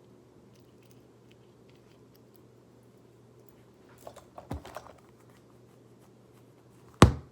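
Small plastic fidget toys being handled: faint scattered clicks, a short run of clicks and taps about four seconds in, and one sharp click just before the end.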